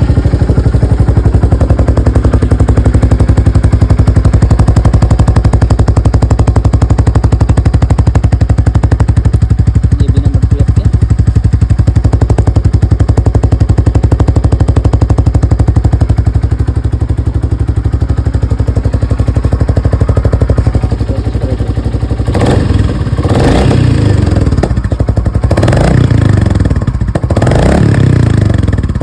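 Royal Enfield Classic 350's single-cylinder engine idling steadily through its loud stock exhaust, with an even thumping pulse. After about twenty seconds it is revved in several short throttle blips that rise and drop back.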